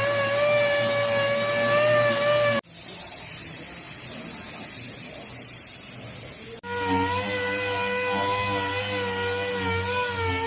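Power tool running with a steady high whine during car body repair. The whine cuts off abruptly about two and a half seconds in, leaving a plain hiss for about four seconds, then the whine returns slightly lower.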